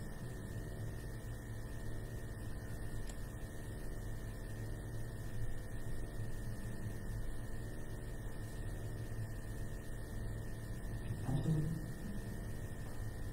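Steady electrical mains hum with many even overtones throughout, under quiet room tone, with a short voice sound about eleven seconds in.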